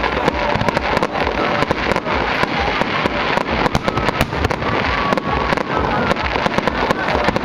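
Aerial fireworks shells bursting in quick succession: a dense, unbroken run of bangs and crackling, several reports a second.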